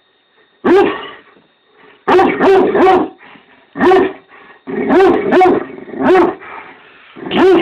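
Great Dane barking angrily, about nine loud barks, some single and some in quick runs of two or three, at a werewolf mask.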